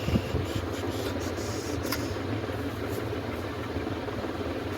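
A steady motor hum with rushing air noise, like a small blower running, with a faint click about two seconds in.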